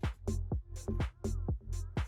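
Electronic dance music with a steady beat and deep bass.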